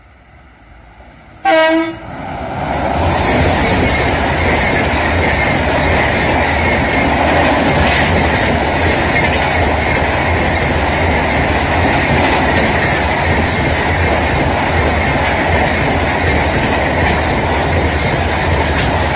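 A locomotive horn gives one short blast about a second and a half in. Then a passenger train passes close by over a steel girder bridge, its coaches making a steady loud rumble with occasional clicks of wheels over rail joints.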